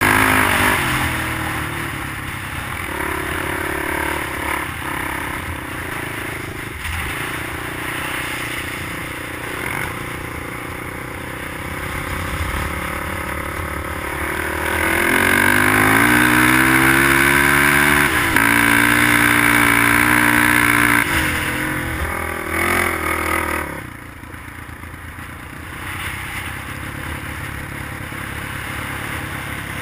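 Dirt bike engine running under throttle through sand; about halfway through the revs climb and hold high for several seconds, then drop off sharply toward the end.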